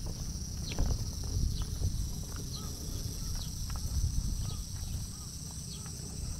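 Summer insects droning steadily in a high pitch, with a walker's footsteps and a few short high chirps that fall in pitch.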